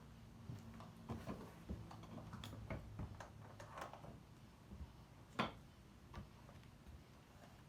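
Faint, irregular clicks and taps with one sharper knock about five and a half seconds in, over a faint low hum.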